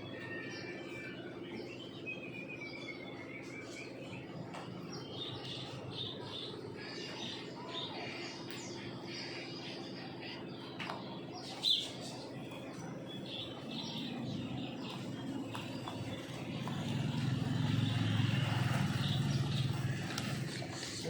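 Small birds chirping over a steady low background hum, which swells to a low rumble near the end. There is one sharp click about twelve seconds in.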